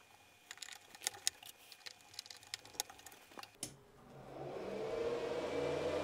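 Small sharp clicks and taps of PC133 memory modules being handled and pressed into the motherboard's memory slots. From about four seconds in, a steady whir with a low hum builds up.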